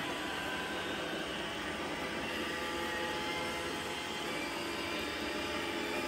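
iRobot Roomba 655 robot vacuum running on carpet: a steady whirring hum from its vacuum motor and brushes as it drives across the floor.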